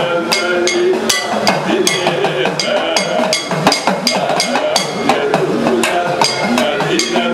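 Sopana sangeetham: a man's voice singing to a chengila, a small bell-metal gong, struck steadily about twice a second, while an edakka hourglass drum plays tones that bend up and down in pitch.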